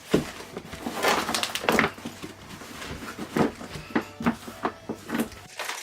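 Packaging and items being handled while unboxing: an irregular run of rustles, taps and knocks.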